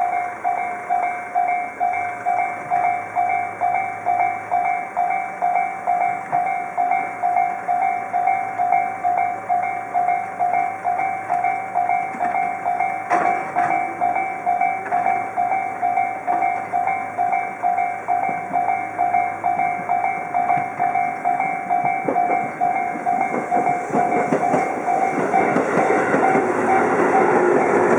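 Japanese railroad-crossing alarm sounding its electronic clanging tone at an even pace, about two and a half strikes a second. A train grows louder over the last few seconds as it nears and runs through the crossing.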